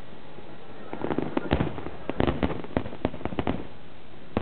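Aerial fireworks bursting: after a short lull, a rapid run of a dozen or more sharp bangs, close together for a couple of seconds, with one more bang near the end.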